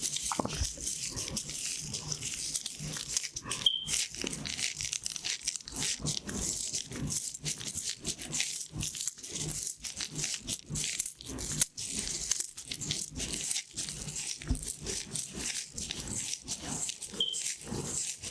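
Pin art toy with its many pins sliding and clicking against each other. The result is a dense, continuous rattle of small clicks.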